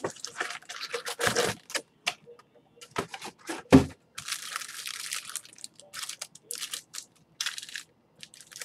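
Irregular clicking and clacking of a computer keyboard being typed on, with one heavier knock about four seconds in and a stretch of hissing noise just after.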